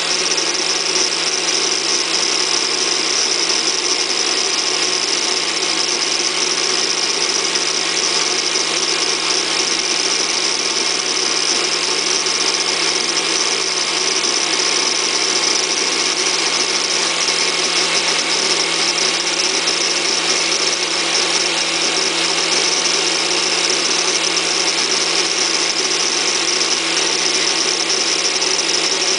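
Bosch PWS angle grinder running steadily, its wheel grinding a hardened steel ball screw as it turns in a small lathe's chuck. The grinding makes a continuous high hiss over a steady hum.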